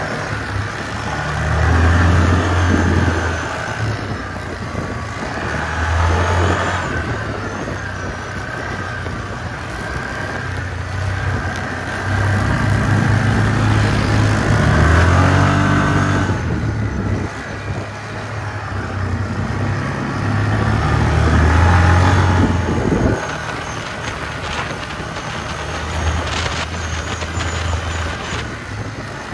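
An ATV engine driven hard, revving up and easing off about four times, over a continuous rushing noise.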